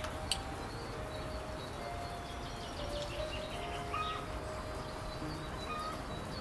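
Outdoor rural ambience with birds chirping and calling over a steady background hiss, and one light click just after the start.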